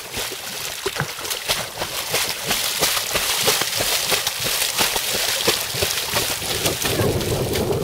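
A dog swimming and splashing heavily, its front legs slapping the water's surface in a continuous run of rapid splashes.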